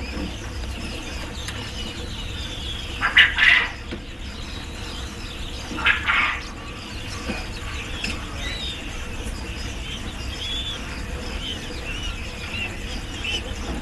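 Small birds chirping: many short, arched peeps over a steady low hum, with two louder rustling bursts about three and six seconds in.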